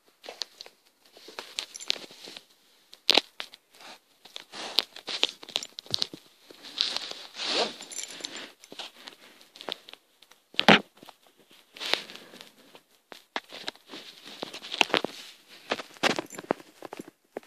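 Irregular crackling and rustling with many scattered sharp clicks, the loudest about ten and a half seconds in.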